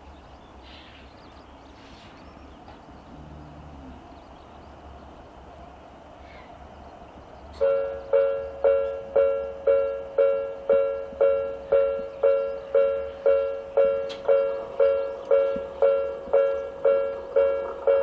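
Japanese level-crossing electronic warning bell starting up about seven and a half seconds in, after low background noise. It sounds a repeating two-pitch ding, about two strikes a second, each one fading quickly. The recordist takes this tone for the 'Hakone type', close in tempo to Odakyu's own crossing sound.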